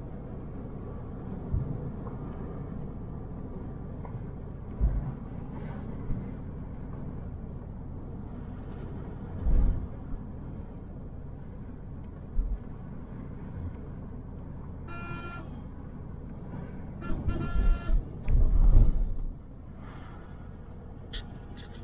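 Steady low rumble of road and wind noise from a moving motorcycle, broken by occasional low thumps. A vehicle horn sounds once about fifteen seconds in and again in a few short toots a couple of seconds later.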